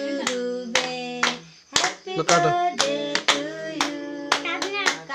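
Several voices singing together with steady hand-clapping in time, about two claps a second.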